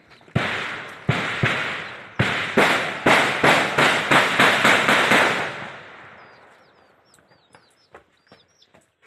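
Gunfire: two single shots, then rapid fire at about four shots a second for some three seconds, echoing and dying away. Birds chirp afterwards, near the end.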